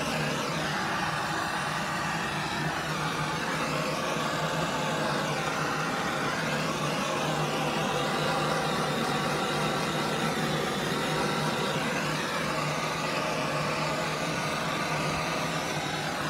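Handheld propane torch burning with a steady hiss as its flame is swept over wet epoxy resin to pop surface air bubbles.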